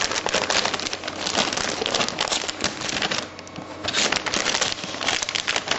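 Plastic wrapping (an anti-static bag) around a motherboard being crinkled and wrestled with by hand, a dense run of irregular crackles, easing off a little just past halfway.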